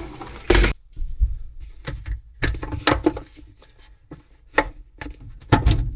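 Hard objects knocking and clattering as they are handled, with about a dozen irregular knocks, some in quick clusters.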